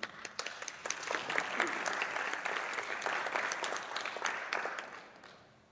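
Theatre audience applauding, starting suddenly and dying away over about five seconds.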